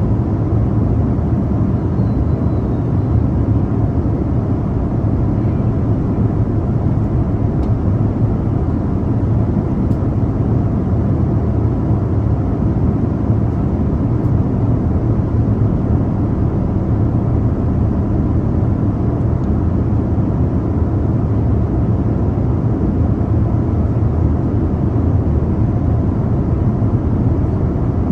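Airliner cabin noise at cruise: a steady low rumble of engine and airflow, with a faint steady hum on top.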